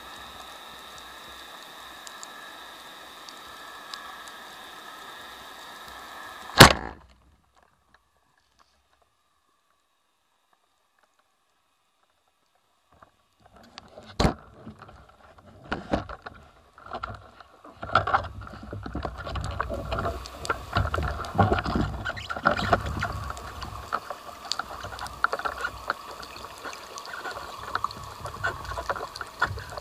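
Underwater sound: a steady hum with a few held tones, then one loud sharp crack about a quarter of the way in, followed by several seconds of silence. After that come scattered clicks, then bubbling and rushing water with low rumbles as a freediver rises through a stream of air bubbles.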